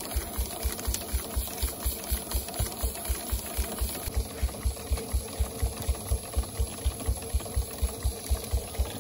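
Half-scale Case 65 HP steam traction engine running at a steady speed, with an even low beat about four to five times a second.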